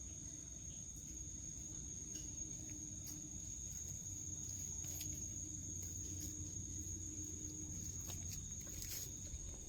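Crickets chirring in one steady high trill, over a faint low, pulsing hum that fades out about eight seconds in.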